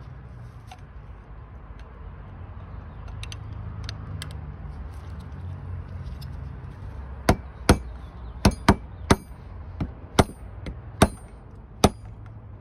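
Hammer striking a thin punch to drive a part out of a clutch master cylinder body: about ten sharp taps at an uneven pace, starting about halfway through.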